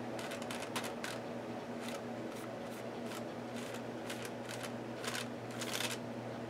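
Paintbrush working paint onto the paper page of an art journal: a run of short brushing and dabbing strokes at an irregular pace, over a steady low hum.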